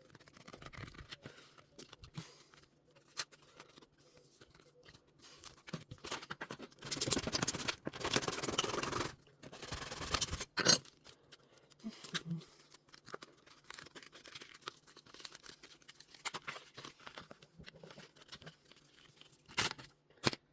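Hands struggling with GoPro packaging: scattered rustling, scraping and small clicks. A louder stretch of rubbing and tearing comes about seven seconds in, followed by a sharp click.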